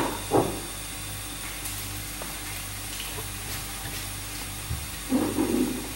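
A glass jar knocks twice on a kitchen countertop as it is set down, then a steady low hum, then a ceramic mug is picked up and shifted on the counter with a few knocks and a scrape near the end.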